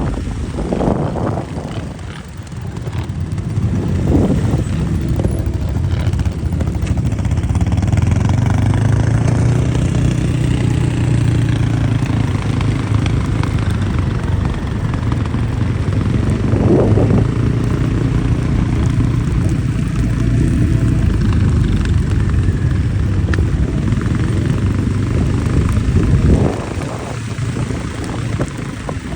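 ATV engine running steadily while riding, with a few brief surges in the throttle.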